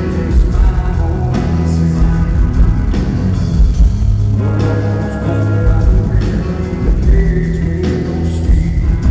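Rock band playing live: electric guitars, bass and drum kit.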